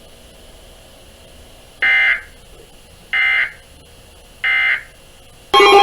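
Three short, identical buzzy data bursts about 1.3 s apart: the NOAA Weather Radio SAME digital code, here the end-of-message signal that closes the warning. Near the end a much louder steady alert tone of several pitches starts.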